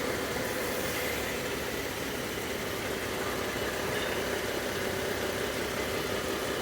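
A vehicle engine idling with a steady hum.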